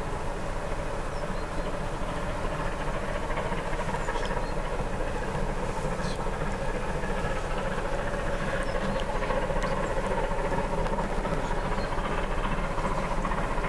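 Distant Bulleid Battle of Britain class steam locomotive working hard as it approaches, a continuous exhaust roar with a low rumble that grows slightly louder.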